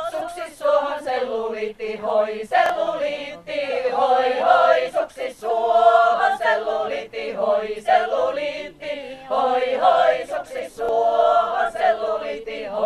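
Women's folk choir singing a Finnish folk song a cappella, phrase after phrase with short breaks for breath.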